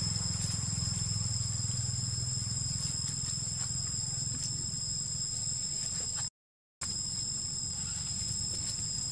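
Steady high-pitched drone of insects over a low, even rumble. About six seconds in, all sound cuts out for about half a second, then the same drone resumes.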